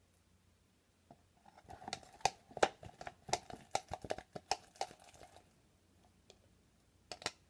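Plastic stir stick scraping and clicking inside a plastic cup as sticky slime is stirred: a quick, uneven run of small clicks and crackles for about four seconds, then two more clicks near the end. The slime is still sticky.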